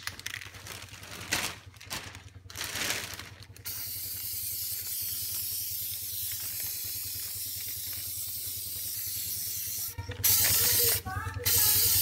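Aerosol spray-paint can spraying a steady hiss, louder from about ten seconds in. Before it, a few seconds of irregular clatter and rustle.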